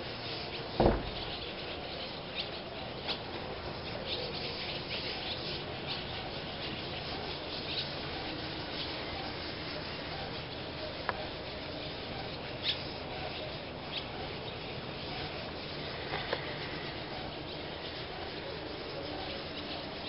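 Large flock of birds circling overhead: a dense, continuous din of many overlapping high chirps and calls. A single loud knock about a second in.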